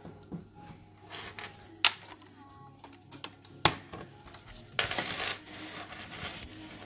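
A few sharp clicks and light taps of small hard objects being handled, the loudest about two and three and a half seconds in, with a brief rustle about five seconds in.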